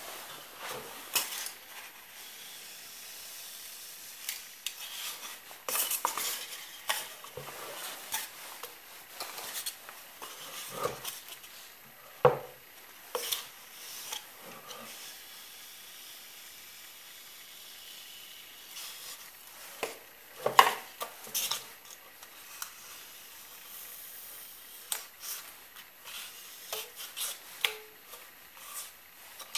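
Handling noise as a block of foamboard is slid and turned across a wooden worktable through a hot-wire foam cutter: rubbing and scraping with irregular knocks and clicks.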